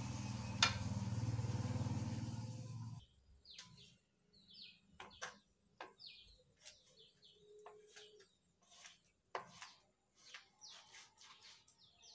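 A low steady hum for about three seconds that cuts off suddenly, then a large knife chopping raw fish flesh on a plastic cutting board in scattered, irregular knocks, with a few short bird chirps among them.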